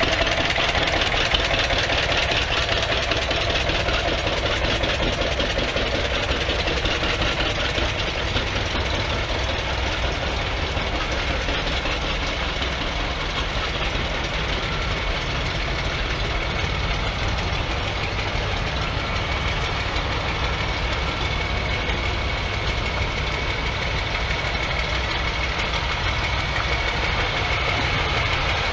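Several antique farm tractor engines idling together, a steady engine rumble with no rise or fall in speed.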